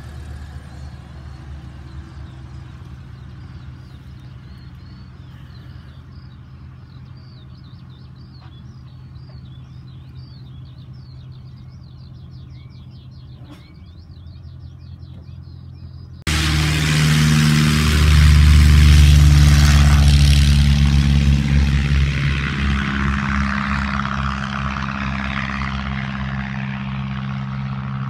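Light single-engine propeller plane's engine running at low power in the distance with faint high chirps, cut off abruptly about halfway through by the loud drone of a light propeller plane at full takeoff power climbing past, which then slowly fades.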